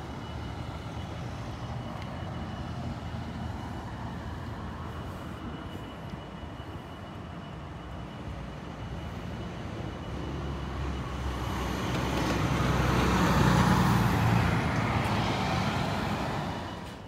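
GBRF Class 66 diesel locomotive's two-stroke V12 engine idling with a steady low hum. From about ten seconds in, a vehicle passes close by, swelling to its loudest about thirteen seconds in and then fading.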